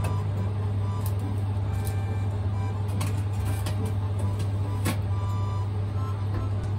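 A sheet pan is slid into a commercial convection oven and its door is shut, giving a few sharp metal knocks, the last about five seconds in. Under them runs a loud, steady low hum of running kitchen machinery.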